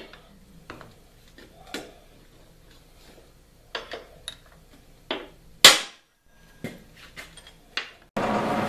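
A hammer tapping a transfer punch against steel to mark a vise's bolt holes: a dozen or so irregular sharp metal taps and knocks, one much louder strike a little before six seconds. Near the end a steady, noisy mechanical sound starts abruptly.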